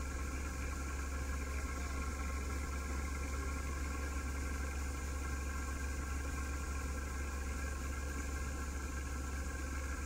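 Heavy farm machine's engine running at a steady speed: a constant low drone with a steady whine above it.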